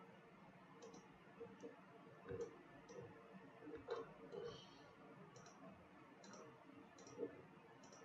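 Faint computer mouse clicks, irregular and about one a second, over near-silent room tone.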